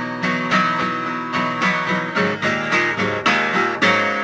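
Recorded band music in a stretch without singing: guitar chords strummed in a steady rhythm, about two strokes a second.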